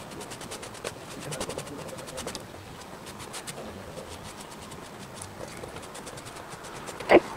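Balled-up t-shirt rubbing over an inked paper collagraph plate, a quick series of short scratchy strokes as the black ink is wiped. A single loud knock near the end.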